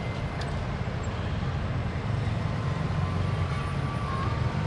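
Low, steady engine rumble of road traffic passing close by: a three-wheeled auto-rickshaw and motorcycles crossing the tracks.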